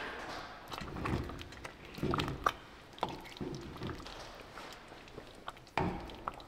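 A ladle stirring thick rice porridge in a ceramic pot: several soft, wet swishing strokes about a second apart, with a few light clicks of the ladle against the pot.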